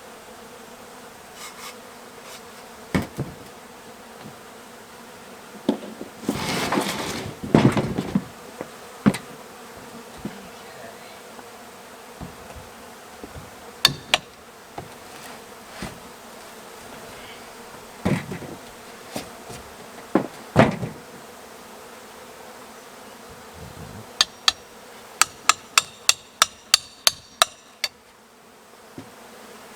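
A swarm of honey bees buzzing steadily around an opened hive, with scattered knocks and a scrape as the barn wall is worked apart. Near the end comes a quick run of about a dozen sharp hammer-like strikes, roughly three a second.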